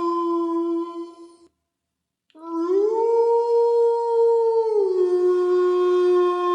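Canine howling, long and held on one steady pitch, breaking off about a second and a half in. After a short gap a new howl starts, rises to a higher pitch and holds. Near the middle it falls back to the lower pitch and holds there.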